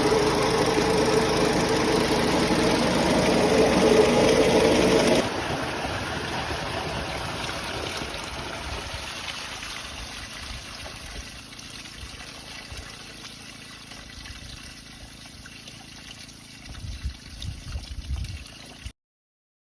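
Gold-recovery machine running with a steady hum and water. The motor stops abruptly about five seconds in, leaving water trickling and draining, fading away, with a few low knocks near the end.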